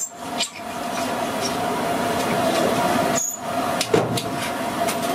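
French fries deep-frying in a kadai of hot oil, a steady sizzling hiss. A skimmer knocks sharply against the pan about four seconds in.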